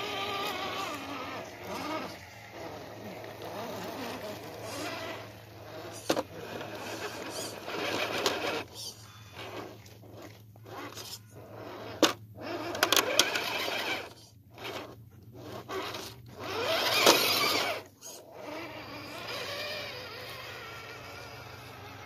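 RC scale rock crawler's electric motor and geartrain whining in stop-start bursts of throttle, with tyres scraping over rock and a couple of sharp knocks.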